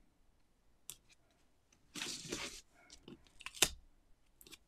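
Cardstock being handled and pressed down by hand: scattered small clicks, a short rustle of paper sliding about two seconds in, and one sharp tap a little over a second later.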